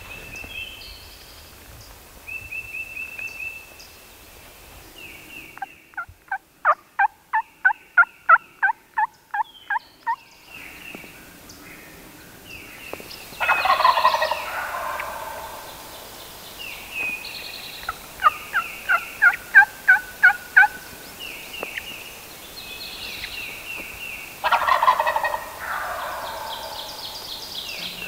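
Wild turkey gobbling at dawn: two loud rattling gobbles, one about halfway through and one near the end. Between them come two runs of evenly spaced turkey yelps, one of about a dozen notes and one of about nine, over small songbird chirps.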